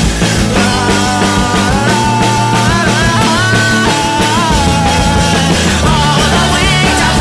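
Loud rock music with a steady drum beat and a wavering melody line over it.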